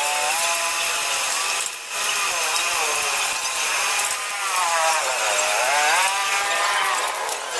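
Background music with a melodic line that glides up and down, over a steady high tone.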